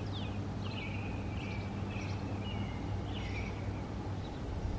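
Birds calling: a run of short, high calls, some sliding quickly downward, over a steady low hum.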